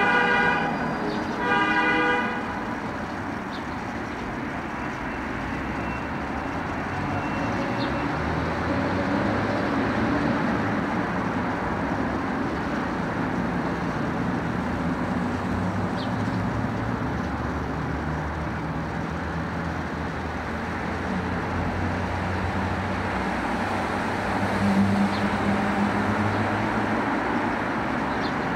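A car horn toots at the start and again about two seconds in, over steady road traffic noise. Engines swell and fade as vehicles pass.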